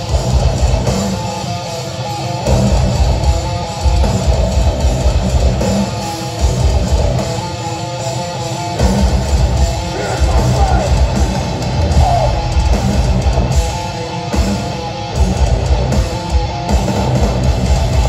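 Metalcore band playing live through a festival PA, heard from within the crowd: heavy distorted electric guitars over pounding drums.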